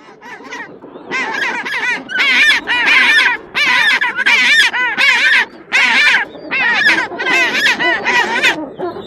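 A bird calling loudly in a long run of short bursts, each burst a quick string of rising-and-falling honking notes.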